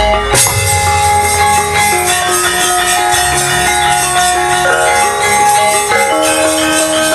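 Javanese gamelan playing: bronze metallophones ring out a melody of held notes over low, steady drum-like pulses, with a deep low stroke right at the start.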